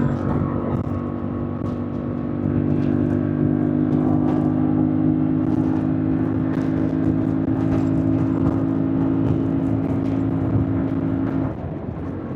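Yamaha MT-07 parallel-twin motorcycle engine running at a fairly steady engine speed under way. It gets louder about two seconds in as the throttle opens, then drops back sharply near the end as the throttle closes.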